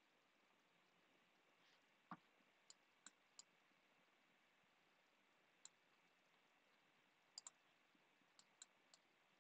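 Near silence broken by about ten faint, scattered computer mouse clicks, two of them in a quick pair near the end.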